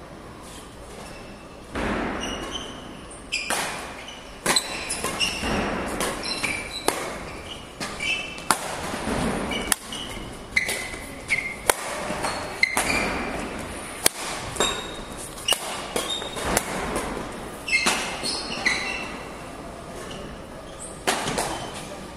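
Badminton play in an echoing hall: sharp racket hits on the shuttlecock again and again, with shoes squeaking on the court floor between them.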